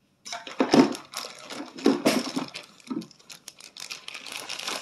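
Plastic packaging crinkling and rustling as a strap is unwrapped, with a heavier bump just under a second in.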